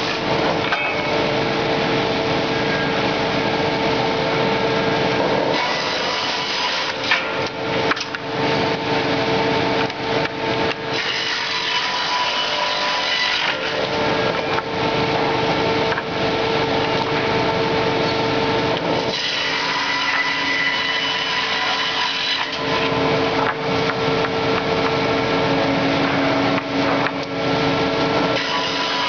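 Fİ.8 HTYA-6 hydraulic board edger running and sawing the bark edges off boards fed through it one after another: a loud, continuous sawing noise over a steady machine whine that fades and returns several times as the cut changes.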